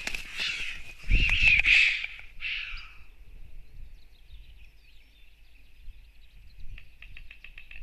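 White storks fighting on the nest: flapping wings and scuffling in the nest material, loudest between one and two seconds in with wing gusts buffeting the microphone, stopping about three seconds in. After that, faint chirps of small birds, and a fast run of even clicks begins near the end.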